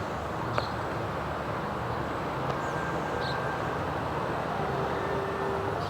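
Steady outdoor rumble of passing road traffic, with one sharp click about half a second in.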